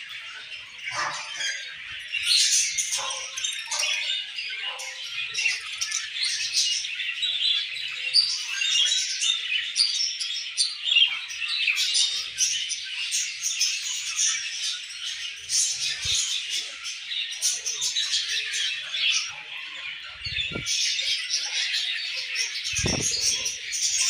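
A colony of budgerigars chattering and warbling, a dense continuous twitter of many birds at once. A couple of brief low thumps come near the end.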